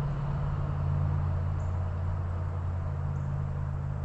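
A motor running steadily, a low even hum.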